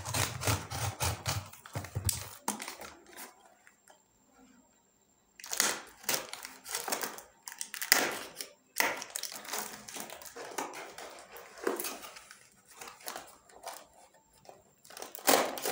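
Yo-yo packaging being opened by hand: irregular crinkling, rustling and tearing, with a near-silent pause a few seconds in.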